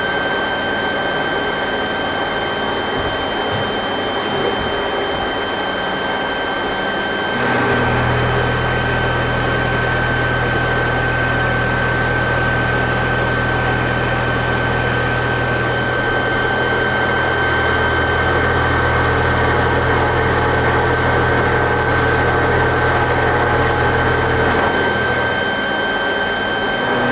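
Mazak CNC lathe running a live-tool end-milling cycle with coolant on: a steady high whine over machine hum. A deeper drone joins about a quarter of the way in and drops out near the end.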